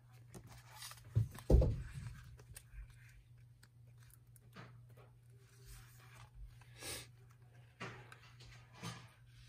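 Paper rustling as the pages of a sticker book are handled and flipped, in short rustles every second or two. Two thumps about a second and a half in are the loudest sounds, over a steady low hum.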